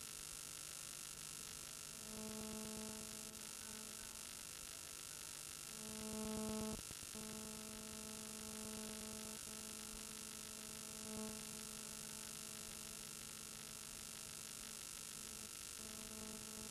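Faint steady electrical hum with a low pitched tone that comes and goes in stretches of a few seconds, breaking off briefly about seven seconds in.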